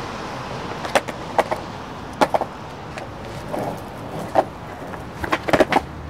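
Skateboard clacks on pavement: sharp knocks of the deck popping and landing, spaced irregularly with a quick cluster near the end, over a low steady hum of street noise.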